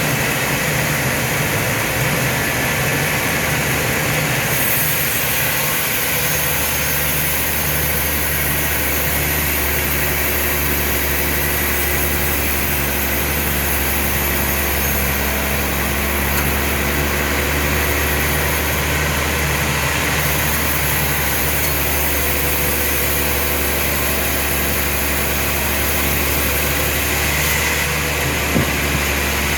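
Heavy sawmill machinery running steadily, with a constant low hum and an even low pulsing. A single sharp knock comes near the end.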